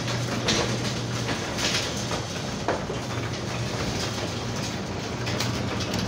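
Chamberlain WD832KEVG garage door opener running, its motor humming steadily as the carriage drives the door along the rail, with a few faint clicks.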